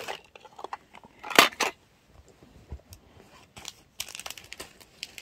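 Rustling and crinkling of something being handled, with two loud, sharp crackles about a second and a half in, scattered small clicks, and more rustling near the end.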